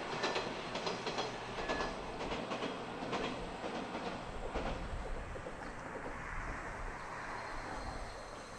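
JR East KiHa 100 series diesel railcar crossing a girder bridge: its wheels clack rhythmically over the rail joints, the clicks growing fainter and dying out about five seconds in as it moves away, leaving a steady rushing noise.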